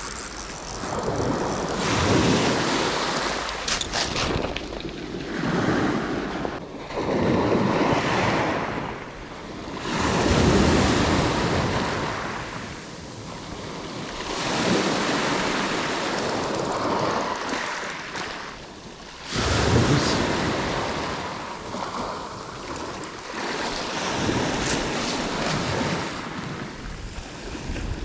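Sea waves washing in, swelling and falling back every few seconds, with wind noise on the microphone.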